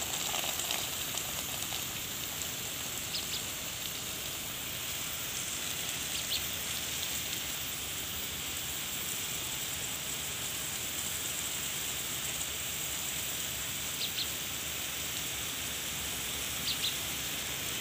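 A jet of water from a garden hose spraying onto soil and pineapple plants: a steady, rain-like hiss and patter. A few brief faint high ticks come through it now and then.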